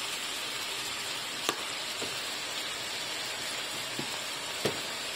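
Sliced bell peppers, tomato and onion sizzling steadily in oil in a stainless steel pot, with a few sharp ticks scattered through it.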